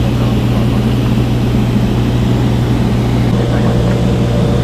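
Cessna TTx single-engine piston airplane in cruise: a steady, loud engine and propeller drone with a strong low hum and a wash of noise above it.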